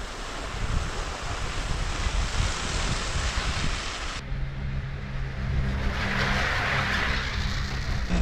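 Wind noise on the camera microphone while riding a chairlift. From about four seconds in, a steady low hum from the lift's cable and tower machinery joins it.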